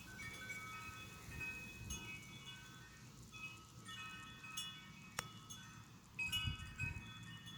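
Wind chimes ringing: several tuned metal notes struck at irregular moments, each ringing on and overlapping the others, over a low rumble, with a sharp click about five seconds in.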